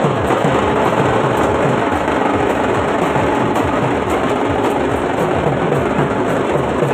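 Loud, dense procession music with drumming, blended with street and crowd noise.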